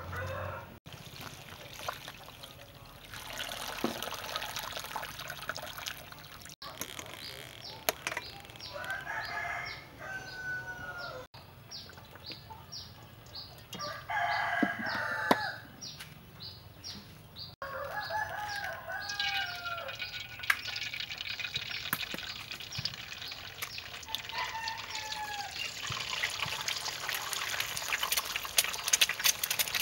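Roosters crowing about four times, each call falling at the end. Over the second half, hot oil sizzles steadily in a wok as eggs fry in it.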